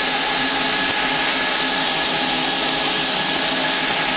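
A vacuum cleaner and a second blower run steadily, pumping the air out of a 6,000-gallon aluminium tank, heard from inside the tank. It is an even rush of air with a steady motor whine in it.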